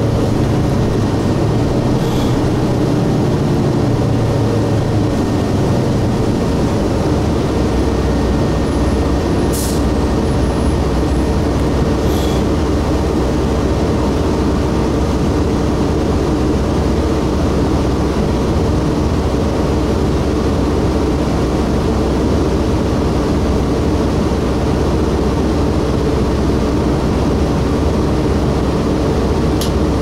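Cummins ISC inline-six diesel of a 2002 Blue Bird 40-ft transit bus running under way, heard from inside the passenger cabin as a steady drone with road noise. Its low note drops about six seconds in. A few faint sharp rattles come through.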